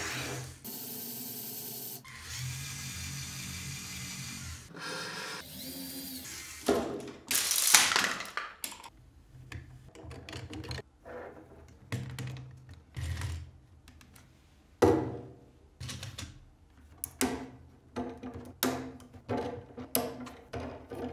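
Small electric motors of a LEGO Technic car whirring in a few short steady stretches; then from about six seconds in, irregular clicks and clatters of plastic LEGO Technic beams and bricks being handled and pulled apart.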